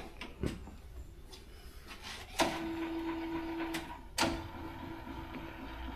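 Milling machine's cross-feed power-feed motor driving the table with a steady whine, switched on by a lever click about two and a half seconds in. It stops briefly and starts again with another click just after four seconds.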